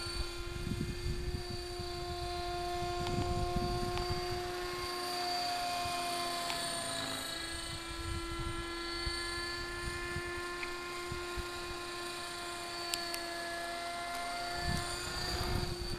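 Electric radio-controlled model helicopter flying overhead: a steady high whine from its motor and rotor, sagging in pitch around six to seven seconds in, then picking up again.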